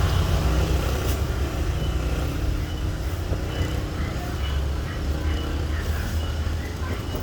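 Euro 150 motorcycle engine running steadily with a low, pulsing rumble.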